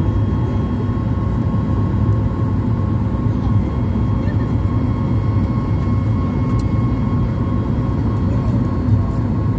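Steady cabin noise of an airliner in flight: a low, even engine drone and rush of air, with a faint steady hum above it.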